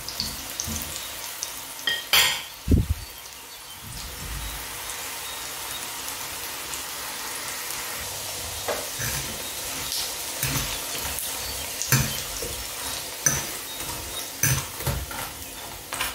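Chicken-breast patties sizzling steadily in hot oil in a stainless steel frying pan over medium heat, with a few sharp clicks of a fork against the pan as they are turned, around two seconds in and again near the end.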